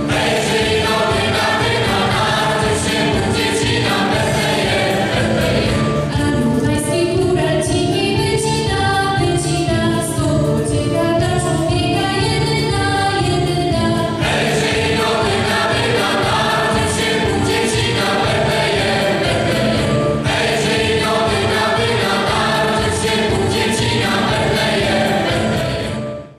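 A choir singing a Polish Christmas carol with instrumental accompaniment and a steady beat; the music breaks off sharply at the very end.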